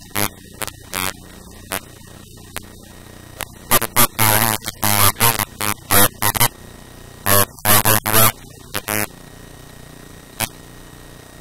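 A person's voice in short, broken bursts over a steady electrical hum.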